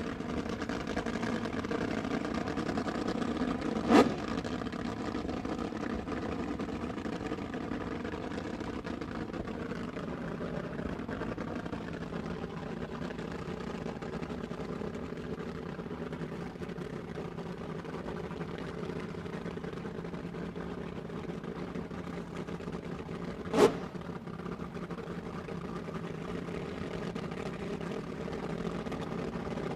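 Sports car engine running steadily. A sharp click sounds about four seconds in and another about twenty seconds later.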